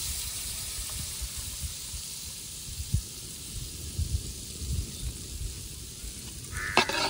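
Butter sizzling as it melts in a hot aluminium kadai, a steady high hiss of bubbling fat that slowly eases off. A few low knocks come in the middle.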